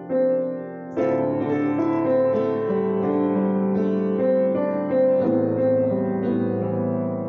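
Solo grand piano played slowly, with chords struck and left ringing: a new chord at the start, another about a second in and another about five seconds in.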